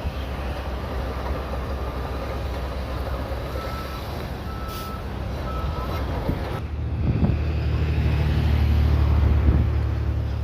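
Shantui DH17C3 bulldozer's diesel engine running steadily, with a reversing alarm beeping three times in the middle. About two-thirds of the way in the engine sound changes suddenly and turns louder, as under heavier load.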